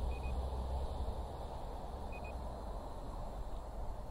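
SJRC F11 Pro drone transmitter beeping a short double beep about every two seconds, the signal that it is recording video. Underneath is a steady low rumble and hiss.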